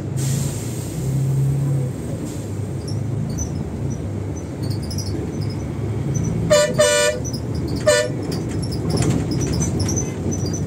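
Steady low rumble of a Volvo bus running on the road, with a vehicle horn tooting twice in quick succession about six and a half seconds in and once more about a second later.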